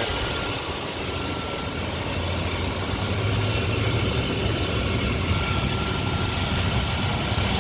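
A 1997 Chevrolet C1500's 4.3-litre Vortec V6 idling steadily a few minutes after a cold start, with the AC compressor engaged. It is running smooth, with no clunks or ticks.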